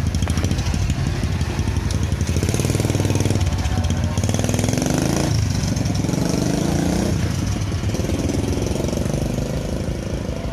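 Mini trail motorcycle with a Honda Supra single-cylinder four-stroke engine running on test, its pitch rising as it is revved, dropping sharply about halfway through, rising again and easing off near the end.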